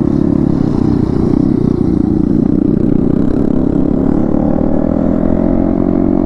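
Yamaha MT-15's single-cylinder engine with an Akrapovic exhaust, running steadily under way, its pitch rising gradually over the second half as the bike picks up speed.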